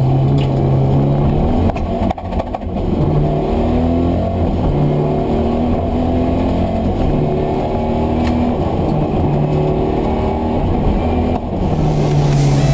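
Mitsubishi Galant VR-4's turbocharged four-cylinder engine, heard from inside the cabin, revving hard under racing load. It climbs in pitch again and again through the gears, with a brief drop about two seconds in as the driver lifts or shifts.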